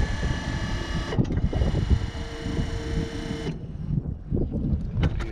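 Electric motors on a Wood-Mizer LT35 HD portable sawmill: a whine of several steady tones cuts off about a second in, then a second motor hum with one steady tone runs and stops abruptly about three and a half seconds in, followed by a few knocks and clatter.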